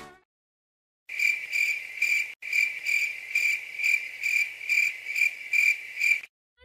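Cricket chirping sound effect: a steady high chirp pulsing about two and a half times a second. It starts after about a second of silence and stops just before the end. This is the stock comic cue for an empty head or awkward silence.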